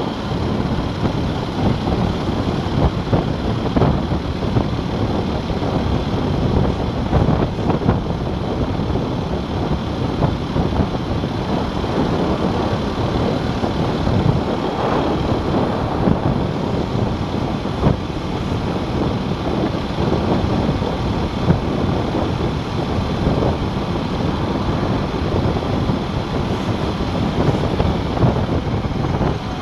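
Wind buffeting the microphone while riding an Aprilia RS4 125, a four-stroke single-cylinder 125cc sports bike, at about 25 mph, with the bike's engine and road noise running underneath.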